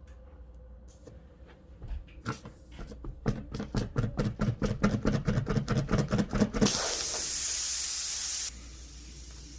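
Tyre plug-kit reamer forced in and out of a nail puncture in a car tyre, in rhythmic strokes about four a second. This is followed by a loud, steady hiss of air escaping from the tyre for about two seconds, which cuts off suddenly.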